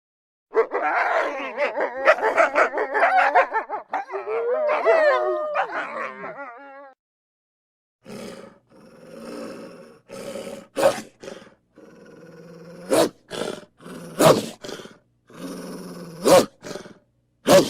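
Wolves calling: several overlapping, wavering cries for about six seconds, then after a short pause a string of short, separate growls and yelps broken by sharp cracks.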